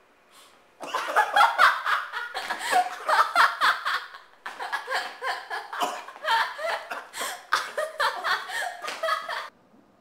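Hard, rapid laughter in long runs of bursts, beginning about a second in, breaking off briefly near the middle and stopping shortly before the end.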